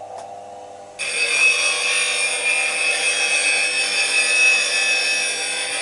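Bench grinder running with a faint hum, then about a second in the steel of a quarter-inch bowl gouge is pressed to the spinning wheel: a loud, steady grinding hiss as a traditional grind is put on the gouge.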